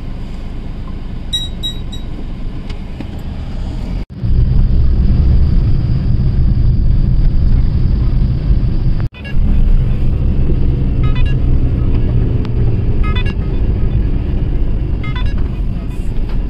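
Steady road and engine rumble inside a moving car, louder after an abrupt cut about four seconds in, with another brief break near nine seconds.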